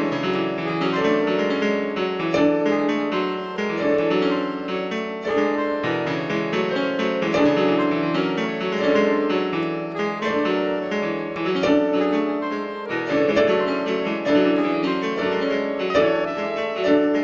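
Piano music, a lively melody over a steady rhythm of chords.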